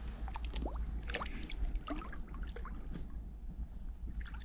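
Light, scattered splashing and dripping of lake water as a small carp is lowered over the side of an inflatable boat and released, over a steady low rumble.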